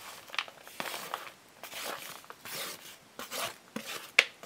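Grated zucchini being scraped off a plate into a metal mixing bowl: a run of soft, irregular scraping and rustling strokes, with a sharp tap about four seconds in.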